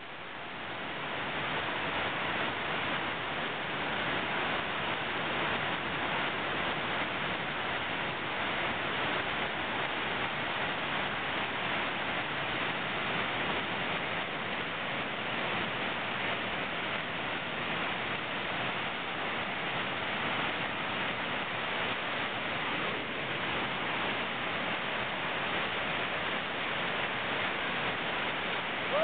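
Steady rushing roar of a big river rapid's whitewater crashing over rocks, fading up over the first couple of seconds.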